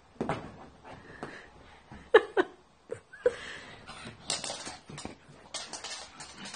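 A pug's short snorting and grunting sounds amid scuffling and rustling on a fabric sofa, with the two loudest sounds close together about two seconds in.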